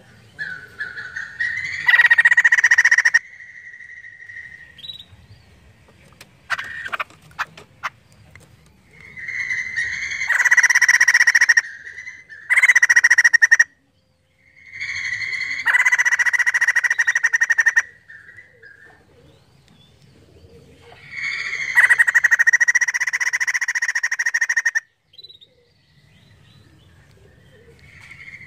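White-crested laughingthrush giving about five loud bouts of fast, cackling chatter, each one to three seconds long, with short pauses between.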